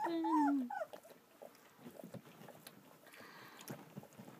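Two-week-old German Shepherd puppy whining: one drawn-out call that falls in pitch and stops within the first second, followed by only faint short noises of the puppies stirring.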